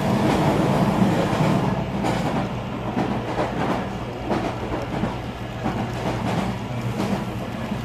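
HO scale model intermodal train rolling past: a steady hum with irregular clicks of metal wheels over the rail joints, growing slightly quieter toward the end.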